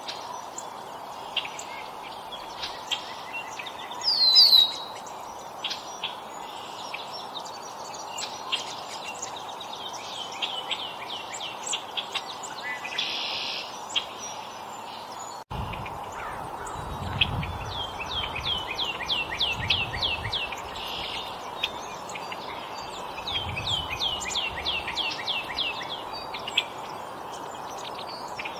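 Songbirds calling and singing: scattered short chirps, a loud whistled note about four seconds in, and several quick series of repeated down-slurred notes, over a steady low background hum. Partway through the sound breaks off for an instant, and faint low rumbles follow.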